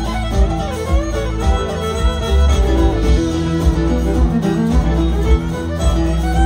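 Live country band playing an instrumental passage: a fiddle carrying the melody over strummed guitars and a steady low beat.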